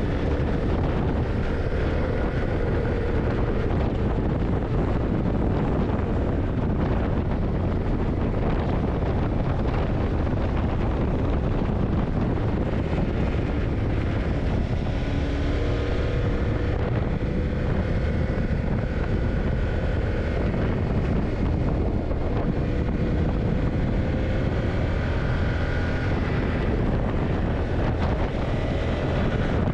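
Yamaha TDM900's parallel-twin engine running at a steady cruise under way, mixed with wind rushing over the microphone. The engine note rises slowly through the second half.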